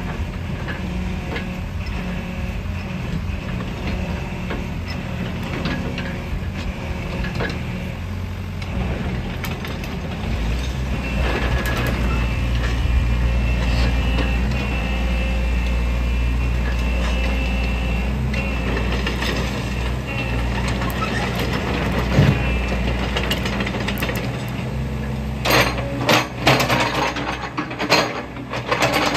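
Sany SY75C excavator's diesel engine running, louder and heavier from about ten seconds in as the hydraulics work the boom, arm and bucket. Near the end, sharp metallic clicks and clanks come in over the engine.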